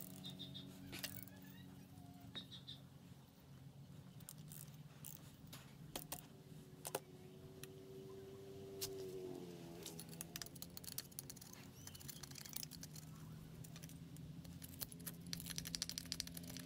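Metal hand tools and engine parts clinking and knocking as a Honda XL250 single-cylinder engine is taken apart, with a fast run of clicks near the end. A steady low hum runs underneath.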